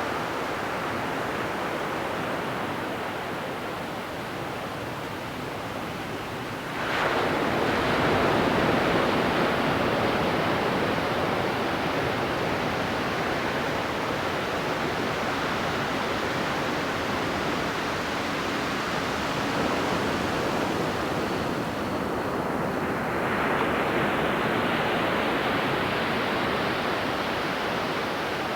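Ocean waves breaking on a beach over a steady hiss of surf. One wave breaks suddenly about a quarter of the way in and its wash runs on; another swells and breaks about three quarters through.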